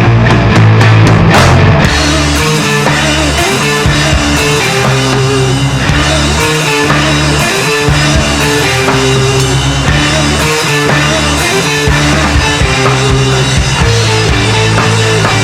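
Rock band mix of drum kit, bass and guitar, played through a spectral-clipper saturation plugin that is being pushed into overdrive. It opens with a quick run of drum hits, then settles into a steady groove.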